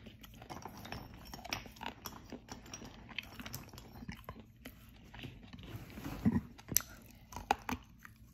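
Close-up biting and chewing of dry edible clay: many small crackles throughout, with a few louder crunches between about six and seven and a half seconds in.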